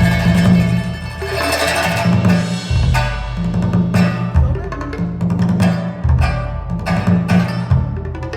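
Instrumental music with a Chinese flavour played from CD over Sonus Faber Aida 2 SE loudspeakers: deep drum strikes about every second and a half, with sharp percussive hits over them.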